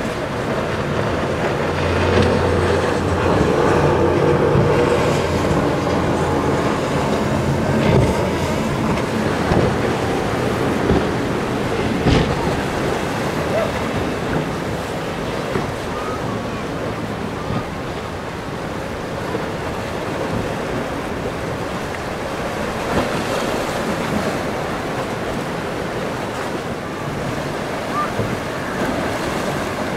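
Wind buffeting the microphone over surf and boat wake, with a boat's engine running past for several seconds near the start, and a sharp thump about twelve seconds in.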